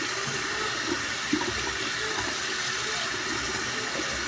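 Water running steadily from a tap while hair is rinsed of slime, with a couple of light knocks about a second in.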